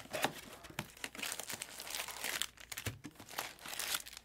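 Foil trading-card packs crinkling and rustling as they are handled and pulled out of a cardboard Bowman Draft Jumbo hobby box, with small scrapes and taps of cardboard.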